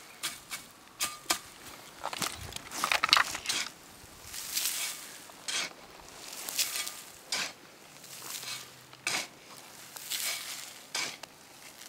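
Small shovel scraping into loose forest soil and tossing it onto a heap of dry pine needles, heaping earth over a pit oven: a series of irregular crunches and scrapes, about one every second or so.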